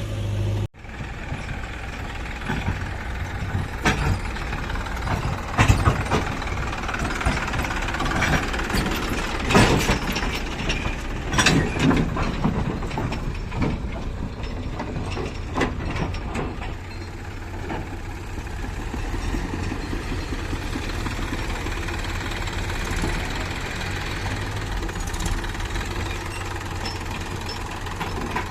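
Heavy diesel machinery running steadily, with scattered clanks and knocks through the first half.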